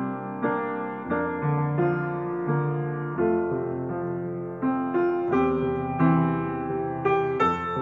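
Piano playing the accompaniment to a responsorial psalm: sustained chords with a new note or chord struck about every half second.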